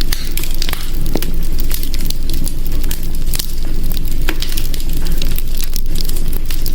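Hearth fire crackling, with frequent irregular sharp snaps and pops over a steady low rumble. A couple of louder snaps come about a second in and about four seconds in.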